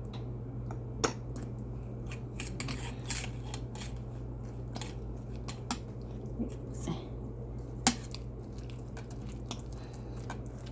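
Spoon clinking and scraping in a bowl as a thick, wet sardine, potato and egg mixture is stirred with flour. There are scattered sharp clicks, the loudest about a second in and near eight seconds, over a steady low hum.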